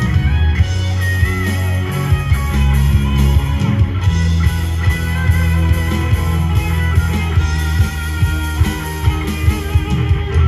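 Live band playing an instrumental passage: electric guitars over bass guitar, keyboard and a steady drum beat, heard through the venue's PA.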